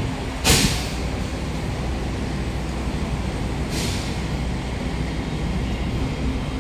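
A Kawasaki–Sifang C151A metro train pulling out of the station, its running gear giving a steady low rumble. Two short hisses sound over it, a loud one about half a second in and a higher one near four seconds in.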